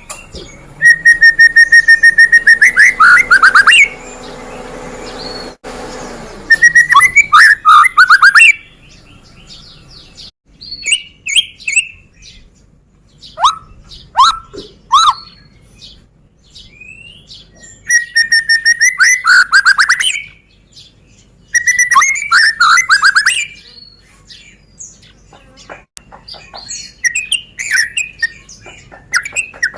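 White-rumped shama (murai batu) singing: loud bursts of very rapid, machine-gun-like repeated notes, four of them, with softer short whistles and chirps in between.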